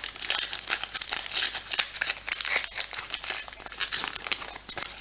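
Trading-card pack wrapper crinkling and tearing as it is opened by hand, a dense run of sharp crackles.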